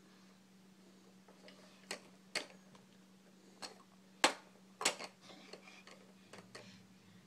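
Hard plastic toy pieces clacking as a baby handles a stacking toy: about five sharp, separate knocks, the loudest a little past halfway, over a faint steady hum.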